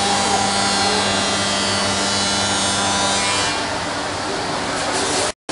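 Spindle of a 5-axis CNC working centre routing solid wood: a steady cutting noise over a constant hum. About three and a half seconds in the hum drops away and the cutting noise thins, and near the end the sound cuts out abruptly for a moment.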